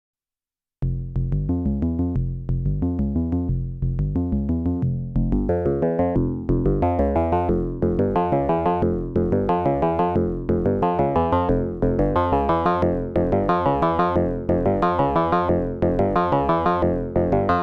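Cre8audio Capt'n Big-O analog Eurorack oscillator playing a sequenced synth pattern, about four notes a second, each note starting bright and decaying. It starts after a short silence about a second in, and the tone grows brighter and fuller from about five seconds in.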